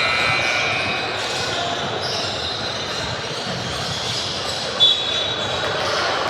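Basketball game in a gymnasium: ball bouncing on the court, sneakers squeaking, and voices in a large echoing hall. A short, loud, high-pitched sound comes about five seconds in.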